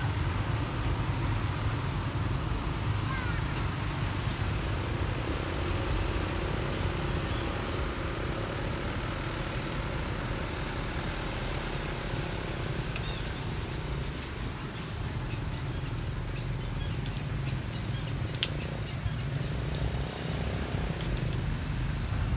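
Steady outdoor background noise: a low rumble with an even hiss, and a few sharp clicks in the second half.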